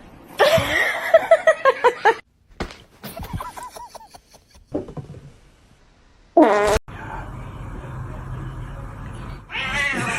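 A sputtering, fart-like noise lasting about two seconds, followed by a few short pitched sounds, one loud brief one past the middle, and then a steady low hum.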